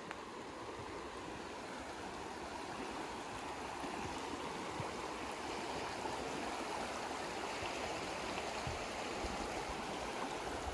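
Rushing river water: a steady, even rush that grows slightly louder over the first few seconds.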